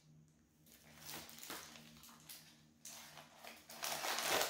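Handling noise of a gold metal chain bag strap: light clinks and rustling as it is moved and set down, with a louder rustle near the end.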